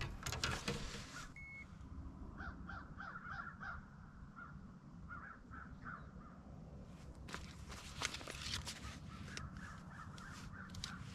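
Birds calling: a quick run of short calls a couple of seconds in and a few more around five to six seconds. A short beep sounds about one and a half seconds in, and light clicks and knocks of handling follow from about seven seconds on.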